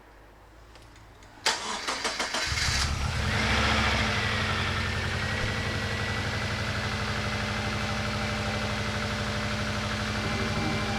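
Subaru Legacy GT-B's twin-turbo flat-four cranking on the starter and firing up about two seconds in, rising briefly, then settling into a steady idle with a high whine over it. It is the engine's first start after being resealed and refitted.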